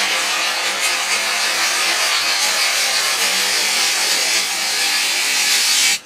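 Chicken and abalone sizzling in a hot pan: a steady frying hiss that cuts off suddenly at the very end.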